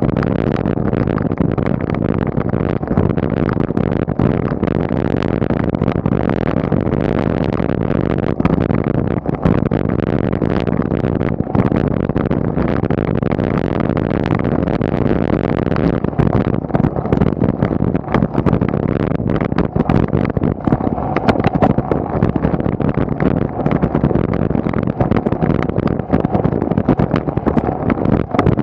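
Steady rumble of tyre, road and wind noise from a bicycle ridden up a tarmac climb at about 20 km/h, picked up by a camera riding on the bike, with frequent small knocks and clicks from bumps in the road surface.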